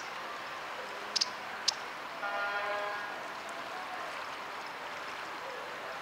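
Steady urban riverside traffic ambience, with two sharp high ticks just over a second in and a short vehicle horn toot, one flat tone with several overtones lasting under a second, about two seconds in.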